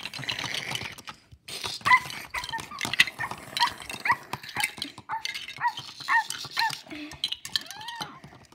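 A series of short, high, dog-like whimpers and yelps, about two a second, mixed with sharp clicks and clatter.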